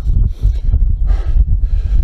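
Strong wind buffeting the microphone with a constant low rumble, over a few heavy breaths from a hiker who is out of breath from climbing a steep hill.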